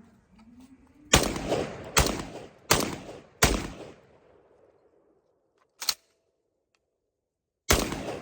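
Garaysar TR19S semi-automatic 12-gauge shotgun firing 1-ounce number 8 Champion birdshot. Four shots come in quick succession, about one every 0.8 s, each with a short ring after it. A single short click comes about six seconds in, and another shot near the end.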